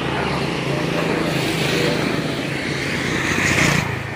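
Heavy diesel truck engine running steadily close by. It grows louder about three seconds in, then fades away near the end.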